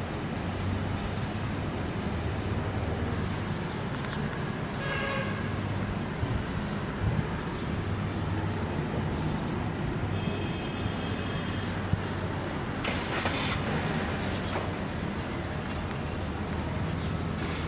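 Steady road traffic noise. There is a short horn-like tone about five seconds in, a longer one around ten to eleven seconds, and a louder rush of noise around thirteen seconds.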